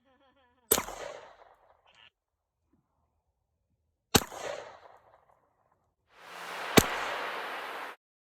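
Three single shots from a Glock 19X 9mm pistol, spaced a few seconds apart, each followed by a short ringing echo. The last shot comes during a burst of steady hiss.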